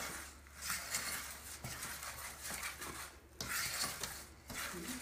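Rubber spatula stirring a thick praline mixture of sugar syrup and pecans in a saucepan, scraping around the pot in repeated strokes.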